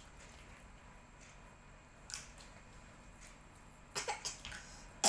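A child coughing in a short run of coughs starting about four seconds in, the last one the loudest.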